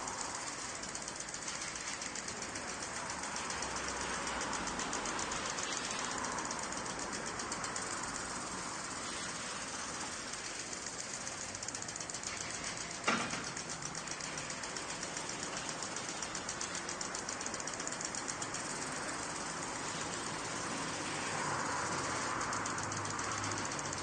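Golf course sprinkler running: a steady hiss of spraying water with a rapid, even ticking, and one sharp click about halfway through.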